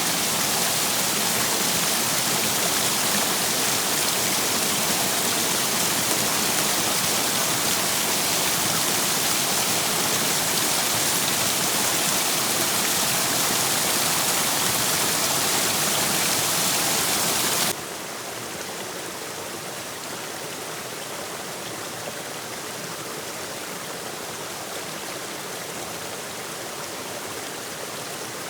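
Waterfall and stream water rushing in a steady hiss. About two-thirds of the way through it drops suddenly to a quieter, duller level, as at a cut to a different spot.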